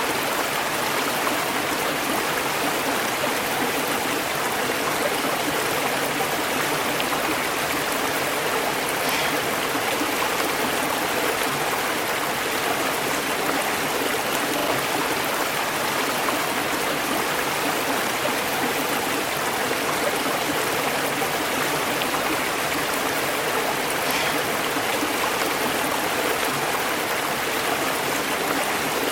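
River water flowing over rocks, a steady rushing and babbling with no breaks.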